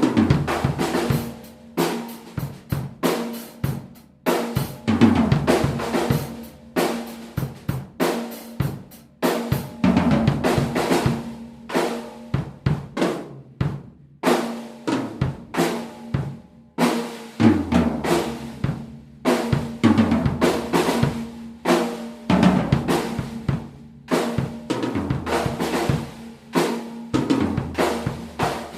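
A PDP Concept Maple seven-piece acoustic drum kit fitted with its stock heads, played with kick, snare, hi-hat and cymbal hits in a continuous pattern. A low drum ring hangs under the strikes, and the sound is raw and unprocessed.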